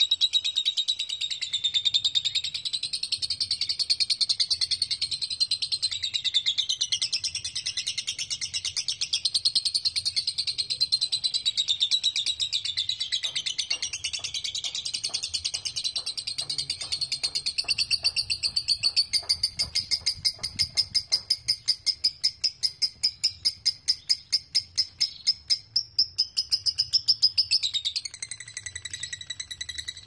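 Lovebird ngekek: a long, unbroken, high-pitched chattering trill in the 'konslet' style, where the bird keeps singing without pausing. About two-thirds of the way in, the chatter turns into a fast, even pulsing, and it drops in volume near the end.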